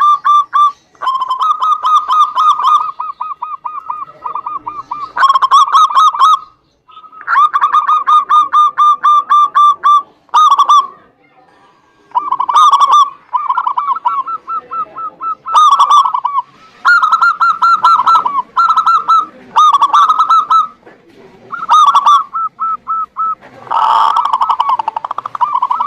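Zebra doves (perkutut) cooing: phrases of rapid staccato coo notes at about one pitch, repeated with short pauses between them, with calls overlapping near the end.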